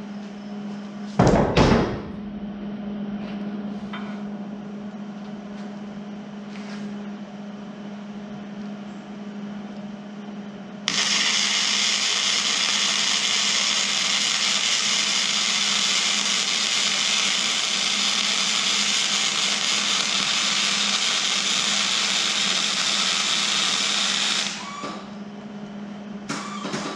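Electric arc welding on a steel trailer bumper mount: a steady frying hiss that starts sharply about 11 seconds in and stops about 13 seconds later. A loud knock comes about a second in, and a steady low hum runs underneath.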